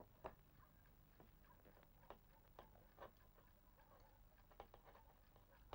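Faint, irregular small clicks and taps of a screwdriver working on a metal door-handle lock mechanism during a repair.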